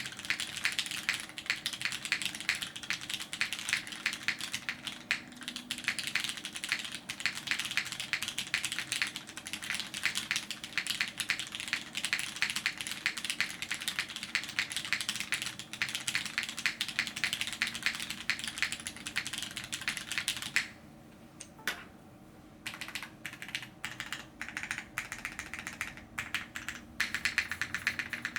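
Custom LZ Reborn Edition mechanical keyboard with an aluminum plate, lubed vintage black linear switches, GMK keycaps and TX stabilizers being typed on in a fast continuous stream of key strokes. About three-quarters of the way through the typing stops briefly, then resumes with scattered strokes that build back to quick typing near the end.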